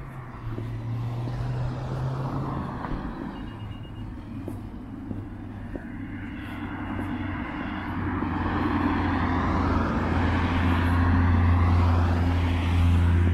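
Motor vehicle engine running on the adjacent road, a low steady hum with a rushing noise that swells and grows louder over the second half.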